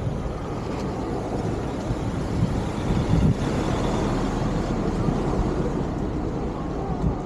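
Steady outdoor background noise, mostly a low rumble.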